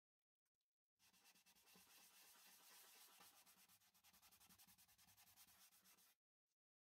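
Paper towel rubbed over a macrocarpa pine bowl, working a liquid finish into the wood: a soft, scratchy rubbing of quick repeated strokes that starts about a second in and breaks off abruptly near the end.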